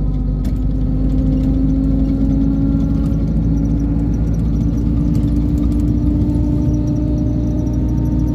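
Inside a moving intercity bus: the engine's steady drone and road noise.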